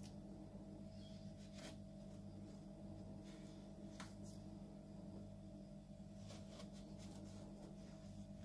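Faint crunches and clicks of a knife cutting through a chocolate-coated fekkas biscuit log, about eight separate sharp strokes, over a steady low hum.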